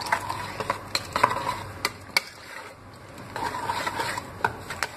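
Hand wire whisk beating muffin batter in a ceramic bowl, its wires clicking and scraping against the bowl in uneven strokes, with a quieter lull of about a second midway.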